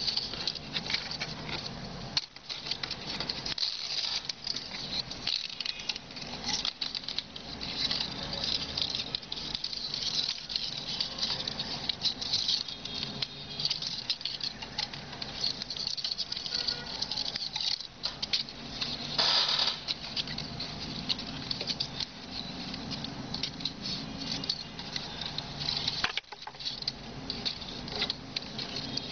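Strip of green palm frond rustling and crackling as fingers fold and weave it, a steady run of small irregular crackles with a louder rustle about two-thirds of the way through.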